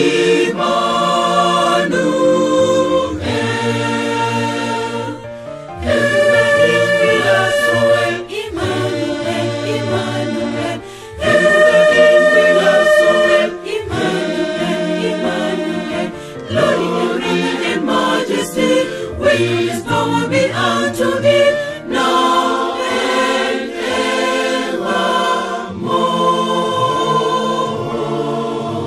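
Mixed choir of women's and men's voices singing a hymn in harmony, in sustained phrases with short breaks between them.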